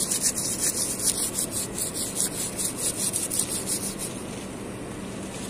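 Rapid scratchy rubbing close to the microphone, several even strokes a second, that stops about four seconds in; a steady low hum runs under it.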